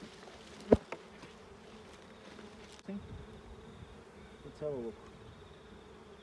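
Honeybees buzzing steadily around the hives, with a sharp knock about three-quarters of a second in and a few quieter knocks after it.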